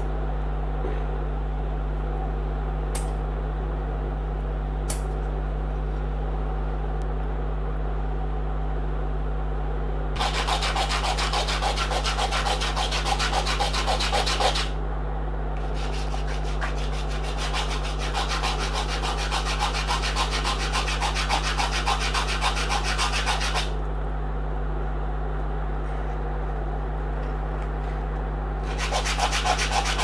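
A PVC-pipe blade sanded by hand on a sheet of sandpaper in quick back-and-forth strokes. It comes in a bout of about four seconds, then about eight seconds after a short pause, and starts again near the end. Two light clicks come a few seconds in, over a steady low hum.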